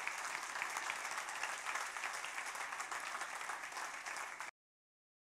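Audience applauding, a dense patter of clapping that cuts off suddenly near the end.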